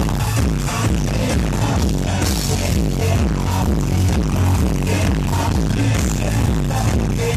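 A live band playing loud electro-industrial music, with a steady driving beat and heavy bass.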